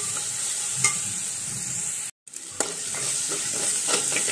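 Chopped onions, tomato and green chillies sizzling in hot oil in a steel pan, with a metal spoon scraping and clinking against the pan as the mixture is stirred. The sound cuts out completely for a moment about halfway through, then the stirring and sizzling go on.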